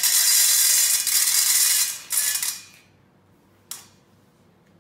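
Dry pet food pellets pouring from an automatic tube dispenser into a stainless steel bowl: a loud rattling clatter for about two seconds, a shorter burst after a brief pause, then a single click near the end.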